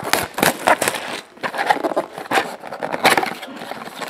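Plastic shrink wrap being torn and crinkled off a trading-card box, with the cardboard box being handled. It comes as a run of irregular crackling rustles.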